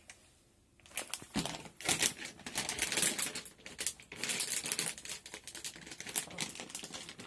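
Stiff plastic dry-food pouch crinkling and crackling as it is handled, starting about a second in and running on as a dense stream of crackles.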